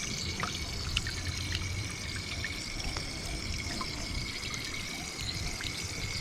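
Water running and trickling from a tank tap as a fish is rinsed and cleaned under it, with small scattered clicks and splashes.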